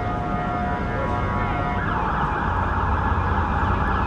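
Emergency-vehicle siren out on the street: a held tone that changes about halfway through to a fast warble, over a low traffic rumble.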